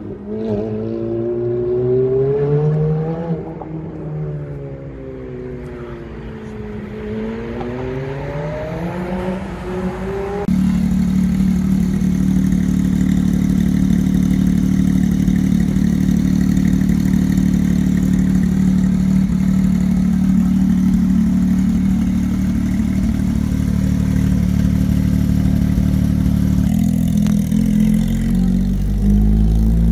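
A Ferrari V8 accelerates away, its pitch climbing and dropping back at each gear change. Then a Porsche 911 GT3's flat-six runs at a steady idle, and near the end it deepens and rises as the car pulls off.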